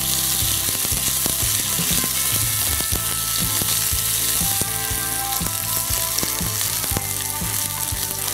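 Hot coconut oil sizzling in a non-stick pan with mustard seeds, fenugreek, dried red chillies and curry leaves frying for a tempering, stirred with a spatula. The sizzle is steady, with many sharp pops and clicks scattered through it.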